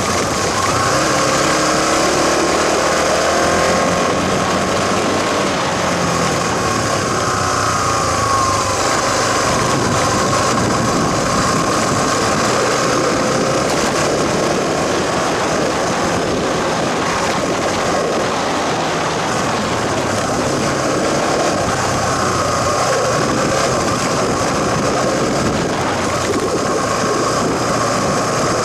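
A trail motorcycle's engine running while it rides a gravel forest track, its pitch rising and falling with the throttle, over a steady rush of wind and road noise.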